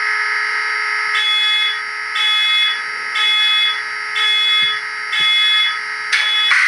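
Locomotive sound effects from a LokSound Micro sound decoder, played through the tiny speaker of an N-scale SD70ACE model: a steady, buzzy electronic tone, with a higher tone pulsing on and off about once a second from a second in.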